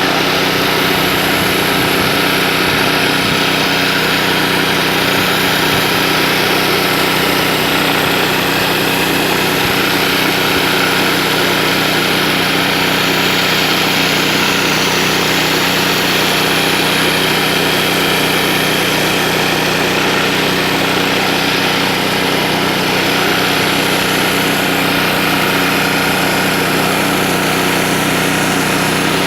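Small-engine pressure washer running steadily, with the hiss of water spraying from a surface-cleaner disc scrubbing a concrete driveway.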